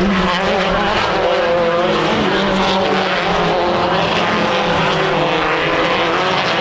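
Off-road race vehicle engine running hard, its pitch rising and falling as the throttle and speed change, over a steady noise of tyres and wind.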